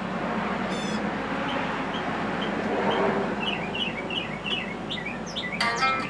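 Small songbirds calling: a high trill about a second in, then a run of short repeated chirps that quicken midway, over a steady outdoor background hiss.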